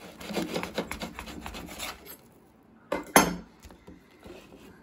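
A kitchen knife sawing through a grill-toasted sandwich on a plastic plate, a run of crisp, scratchy crunching strokes for about two seconds. About three seconds in come two sharp knocks close together.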